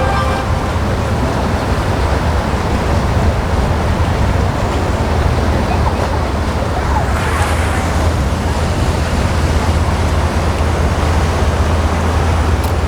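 Steady rush of wind, surf and boat engine noise with a strong low rumble, swelling louder for a moment about seven seconds in.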